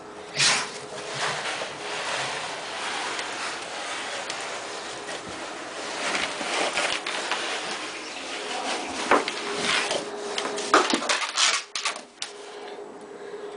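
A bull terrier scuffling and rubbing about at close range on an artificial-turf floor, making a long run of scraping and scuffing noises. There is a sharp knock about half a second in and several more near the end.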